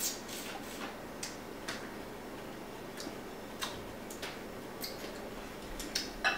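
Eating sounds: irregular soft clicks from chewing and lip-smacking on boiled seafood, with a sharper click near the end as chopsticks touch a glass bowl.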